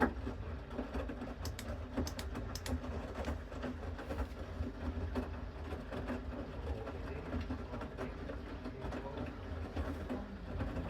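Bosch Series 6 washing machine in the main wash of a 60° mixed load, its drum turning with a steady low rumble. A handful of light clicks come close together a second or two in.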